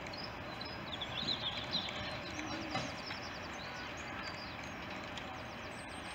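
Class 50 diesel locomotive approaching slowly with its train of coaches, a low steady rumble. Small birds chirp over it in quick bursts, about a second in and again a little after the middle.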